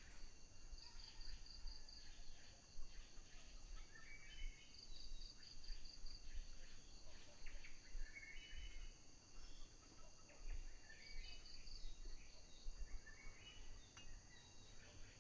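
Tropical forest wildlife at dusk: insects keep up a steady high drone, one of them breaks in every few seconds with a short pulsed trill, and a bird repeats a short stepped phrase about every four seconds. A faint low rumble runs underneath.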